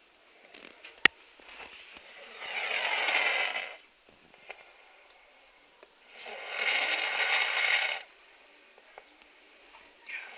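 A person snoring loudly: two long snores about four seconds apart, each lasting under two seconds. A single sharp click about a second in.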